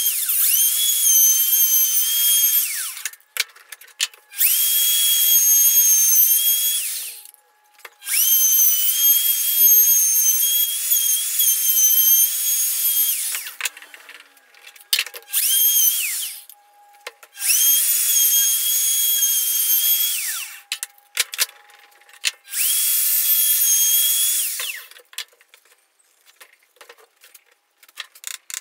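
Handheld electric router routing chambers in a wooden guitar body, its motor whining at a high pitch in runs of a few seconds. It is switched on and off repeatedly, the pitch rising as it spins up and falling as it winds down. Light clicks and knocks come near the end.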